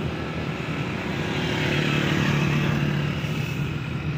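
Car driving along a city road, its engine hum and tyre noise heard from inside the cabin, swelling a little for a moment around the middle.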